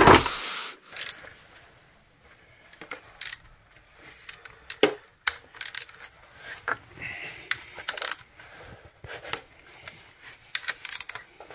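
Scattered sharp metallic clicks and clinks of a socket wrench, a 10 mm socket by the talk, being fitted and worked on engine bolts. The clicks come irregularly, a dozen or so over the span.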